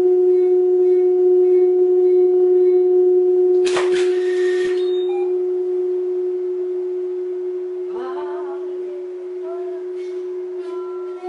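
Large metal plate resonating with one steady, pure ringing tone, strong at first and slowly fading over the last several seconds as the vibration dies away. A short rasping noise cuts in about four seconds in.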